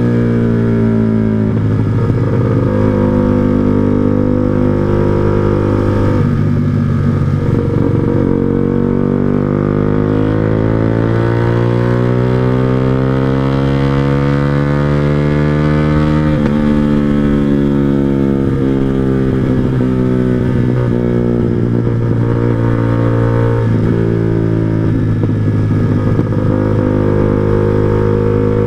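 Yamaha R15 V2's single-cylinder engine breathing through an aftermarket Proliner TR1R Short silencer on a 3Tech Racing header, under way. The revs rise and fall through the gears, with one long, slow climb in pitch that drops suddenly at the shift about halfway through.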